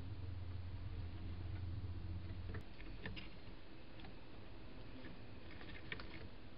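A steady low hum that stops suddenly about two and a half seconds in, then faint, irregular ticks and clicks from a dormouse moving about on the wooden sill right at the trail camera, over a steady hiss.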